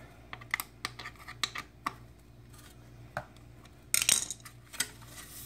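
Light metallic clicks and clinks of a hex key and bolts against the aluminium exhaust heat shield as it is unbolted from beneath a motorcycle engine, with a brief denser clatter about four seconds in.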